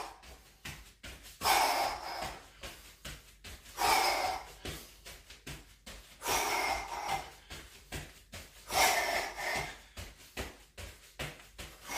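A man breathing hard from exertion, with long, heavy exhales about every two and a half seconds. Under the breathing, a quick run of light thumps from feet landing during jumping jacks.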